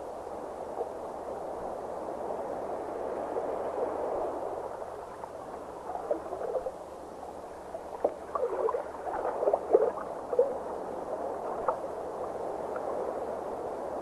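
Underwater water ambience: a steady muffled rush of moving water with bubbling gurgles, which come thicker and louder between about six and eleven seconds in.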